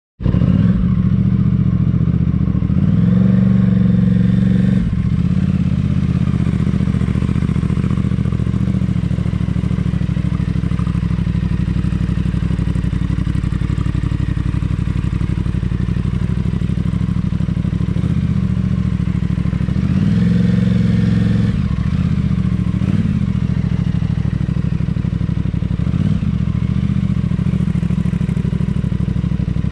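2020 Aprilia RS660's parallel-twin engine through a Mivv aftermarket exhaust, running at low revs while the bike creeps along at walking pace. The revs rise briefly twice, about three seconds in and about twenty seconds in, then settle back.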